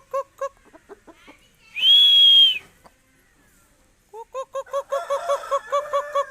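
Aseel chickens clucking in rapid runs of about six clucks a second. About two seconds in, a single loud, high, steady whistle-like note lasts just under a second, and the clucking picks up again near the end.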